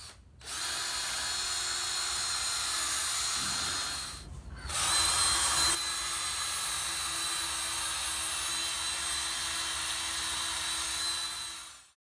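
Handheld electric drill running a 3M headlight-restoration sanding disc on a headlight lens, a steady whine. It slows and drops away around four seconds in, starts again, and stops abruptly just before the end.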